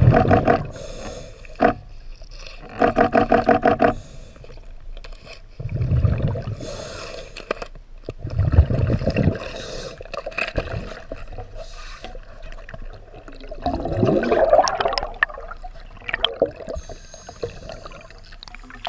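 Scuba diver breathing through a regulator underwater: a buzzing, pulsing inhale through the demand valve about three seconds in, and bursts of exhaled bubbles gurgling about six, nine and fourteen seconds in.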